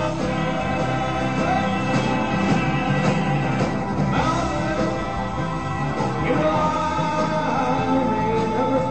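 Live rock and roll band playing on stage, with a man singing over the drums and band.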